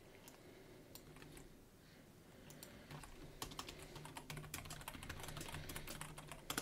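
Typing on a computer keyboard, faint: a few scattered keystrokes, then a quick, steady run of keystrokes from about two and a half seconds in.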